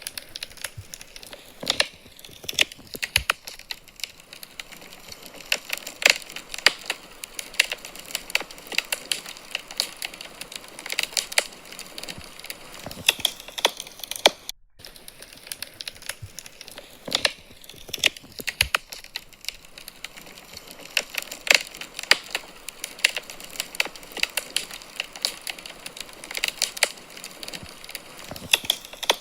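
Wood fire crackling in a fireplace: irregular sharp pops and snaps over a soft hiss, with a brief dropout about halfway through.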